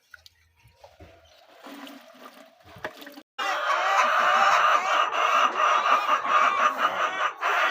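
A flock of laying hens clucking and calling together, many birds at once; the loud chorus starts abruptly about three seconds in after quieter, scattered sounds.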